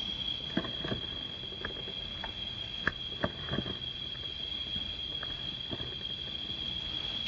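Steady high-pitched insect drone, with about nine short clicks and taps scattered through it.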